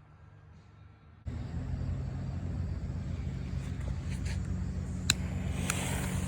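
After a faint lull, a steady low mechanical hum starts abruptly about a second in and runs on, with a short sharp click about five seconds in.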